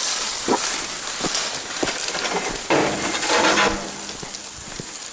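Dry brush rustling and crackling, with twigs snapping, as someone pushes through the undergrowth; a louder burst of rustling comes about three seconds in.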